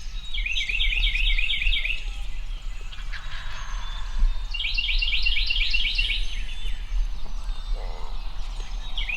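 A songbird singing the same short phrase three times, each a quick run of about eight high, slurred notes lasting roughly a second and a half, repeated every four to five seconds.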